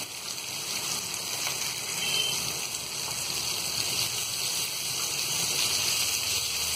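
Marinated mutton chops sizzling in shallow hot oil in a nonstick frying pan, a steady hiss as the chops are turned over with tongs.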